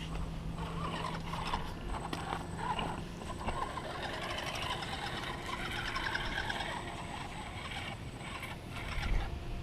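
Twin Hammer RC rock crawler's electric motor and gears whining as it crawls over creek rocks, the pitch rising and falling with the throttle through the middle.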